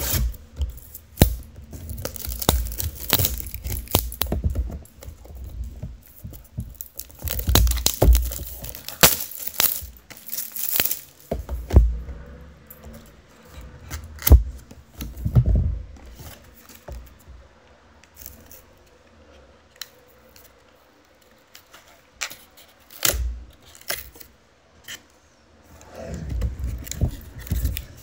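Cellophane shrink wrap being torn and crinkled off a cardboard trading-card hobby box, in irregular bursts of crackling mixed with sharp clicks and knocks of the box being handled. The handling is busiest in the first dozen seconds, eases off in the middle and picks up again near the end.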